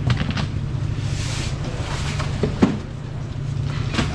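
Steady low hum of market-street background, with a few sharp knocks and a brief hiss as green plastic baskets and foam boxes are handled.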